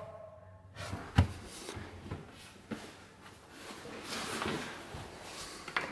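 A sharp click about a second in, then a few softer clicks and knocks with faint handling noise, in a small quiet room.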